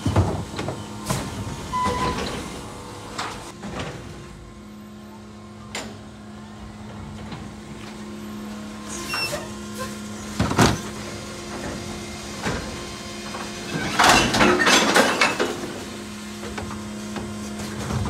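Electric Mack LR New Way Sidewinder side-loading garbage truck humming steadily while working at the curb, with scattered knocks and clanks. A loud burst of clatter comes about fourteen seconds in.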